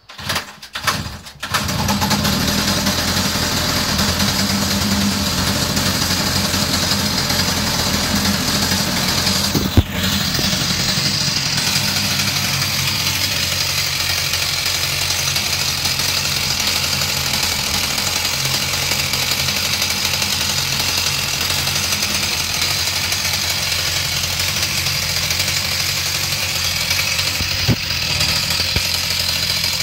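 33 cc two-stroke chainsaw engine started, catching after a couple of short bursts in the first second and a half, then running steadily at idle. A sharp click about ten seconds in and another near the end.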